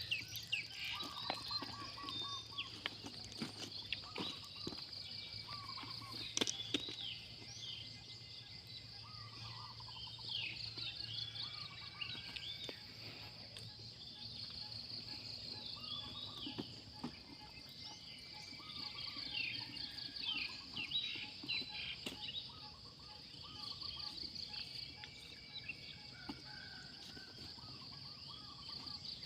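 Outdoor chorus of insects trilling steadily in a high, fast-pulsing tone, with many short bird chirps and calls over it and a few sharp clicks. A faint low hum runs under the first half and fades.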